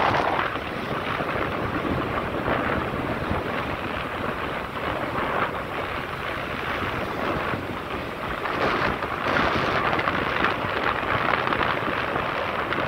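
Steady rush of wind buffeting the microphone of a camera on a moving motorcycle, with the bike's running and road noise mixed in beneath it.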